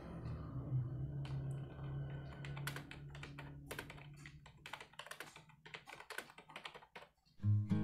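Typing on a used Lenovo KU-0225 USB computer keyboard: a quick, irregular run of key clicks. Background music is faint under the typing and comes in loud near the end.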